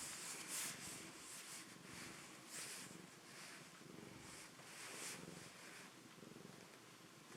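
Cat purring steadily and faintly, heard close up, with soft breathy hisses every second or so.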